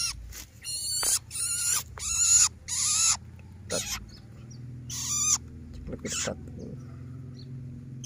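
A two-month-old long-tailed shrike (cendet) giving wavering begging calls with its beak wide open: five in quick succession over the first three seconds, then a few shorter, spaced-out calls.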